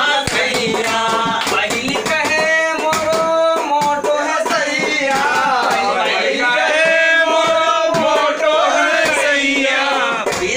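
Men singing a Rewa comic folk song (hasya geet), accompanied by steady rhythmic strikes on a steel vessel used as a drum.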